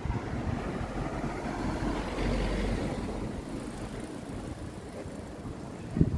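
A road vehicle passing by: a rush of tyre and engine noise that grows and then fades, loudest about two and a half seconds in. A couple of short knocks near the end.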